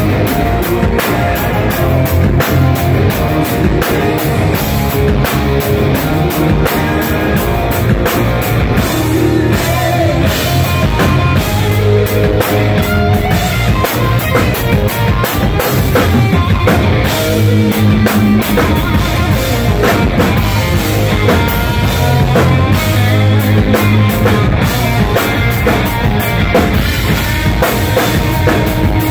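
Live rock band playing loud: electric guitars over a driving drum kit.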